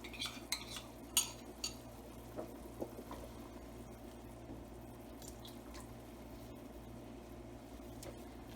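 A metal utensil clinks and scrapes against the pan a few times in the first second and a half, then the sauce simmers steadily with a few faint pops as the cornstarch slurry thickens it.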